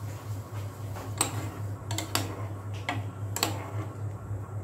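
Saucepan of water heating on a glass-top hob: a steady low hum with five sharp, irregular ticks, the loudest about a second in and again about three and a half seconds in.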